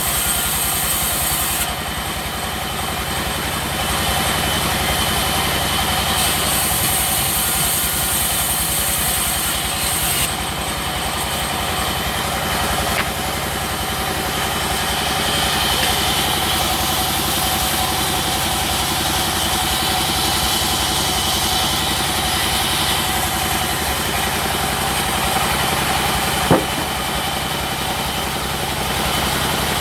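Sawmill machinery running steadily while teak is sawn, with a single sharp knock near the end.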